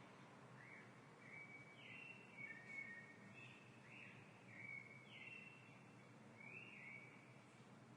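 Quiet room tone: a steady low hum with faint birds chirping, a string of short calls about one or two a second.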